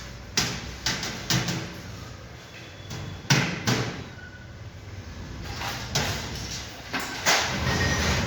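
Irregular sharp knocks and clatter, about seven in all and spaced unevenly, over a steady background din.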